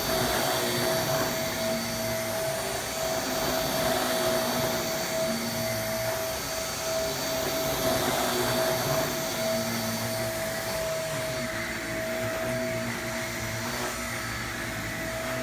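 Original Shark Navigator upright vacuum cleaner running steadily at full power, a constant motor whine over the rush of air.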